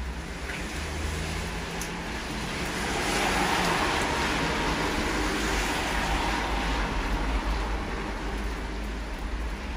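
A car driving past on a wet street, its tyres hissing on the wet road, rising to its loudest about three to four seconds in and then slowly fading, with steady rain underneath.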